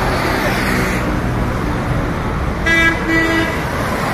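Steady road traffic noise, with a vehicle horn giving two short toots about three quarters of the way through.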